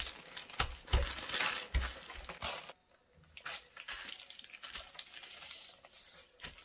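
Clear plastic freezer bag crinkling and rustling as hands press and smooth a soft batter flat inside it, with a few soft low thumps from the pressing hands. The sound breaks off briefly about three seconds in.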